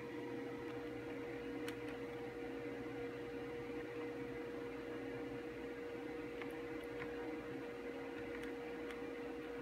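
Steady electrical hum with one constant mid-pitched tone over a hiss, with a few faint clicks from the monitor's front-panel menu buttons being pressed.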